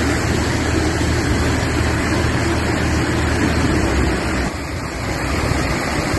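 Floodwater rushing and splashing around a stalled minibus's wheels, a loud steady rush with a low rumble underneath that briefly drops about four and a half seconds in.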